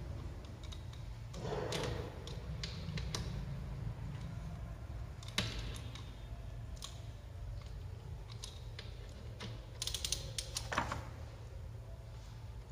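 Irregular clicks and light metal clinks from hand tools and fittings being worked at the underside of a scooter engine during an oil change, with a denser run of clicks about ten seconds in. A steady low hum lies underneath.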